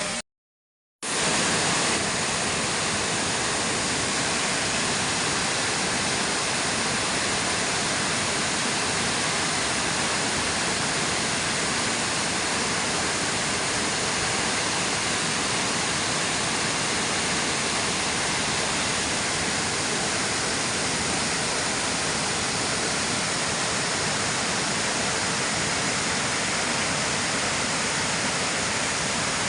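Waterfall pouring: a steady, dense rush of falling water, broken only by a split second of silence just after the start.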